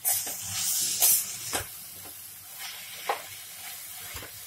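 Grated carrot halwa and khoya being stir-fried in a nonstick kadai with a steel spoon: a loud hiss of frying and stirring in the first second or so, then single scrapes of the spoon through the mixture every second and a half or so over a low sizzle.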